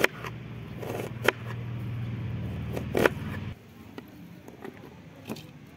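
Kitchen knife slicing onion on a wooden chopping board: a few sharp knocks of the blade on the board, then the slices scraped up along the board on the blade. Under it a steady low engine hum cuts off about three and a half seconds in.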